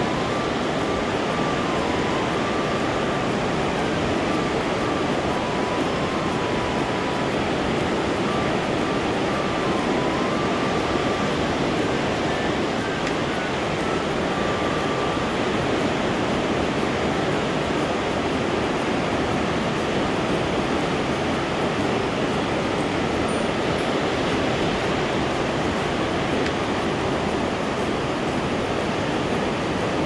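Steady rush of river water spilling over a low concrete weir and running past, with a few faint short high pips in the first half.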